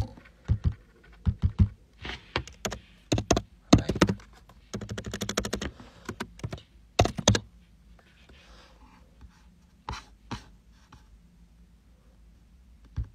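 Fingers tapping and typing on a smartphone touchscreen held close to its microphone: a quick, irregular run of taps and clicks for about seven seconds, then a few scattered taps.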